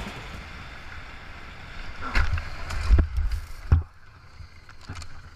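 Off-road motorcycle going down in the dirt: a low rumble with wind noise on the microphone, then three heavy thumps between about two and four seconds in as the bike falls and slides, then quieter.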